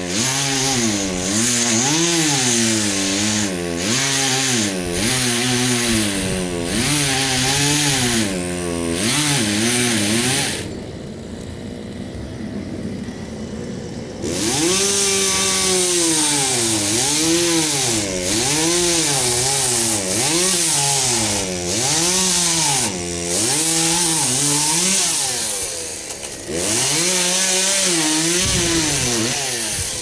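Two-stroke chainsaw cutting into the trunk of a dead pine, its engine pitch dipping and recovering about once a second as the chain bites and eases. About ten seconds in it drops to a quieter idle for a few seconds, then goes back to full-throttle cutting, with a brief dip near the end.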